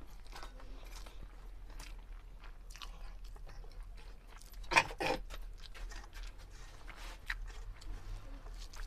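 A person chewing a mouthful of rice and black chana curry eaten by hand, with many small wet clicks and smacks. About halfway through comes a louder pair of sharp sounds in quick succession.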